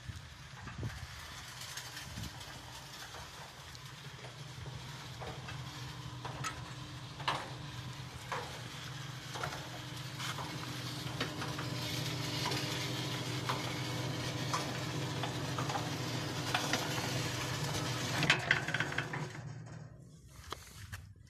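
Genius Blizzard 500 sliding gate operator running, its motor humming steadily as it drives the gate along the toothed rack, with scattered clicks and knocks from the rack and gate hardware. The hum grows louder, then stops shortly before the end as the gate reaches its limit.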